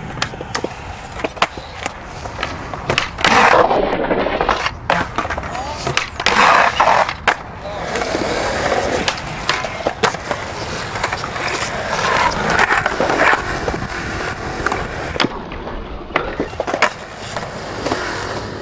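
Skateboards rolling on concrete, with sharp clacks of boards popping and landing repeatedly. There are several longer, louder scrapes of boards sliding or grinding along concrete ledges.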